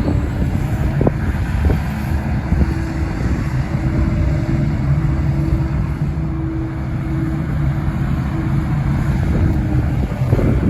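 Diesel engine of a 1991 Liebherr A912 Litronic wheeled excavator running steadily, with a steady higher hum from about two seconds in until near the end.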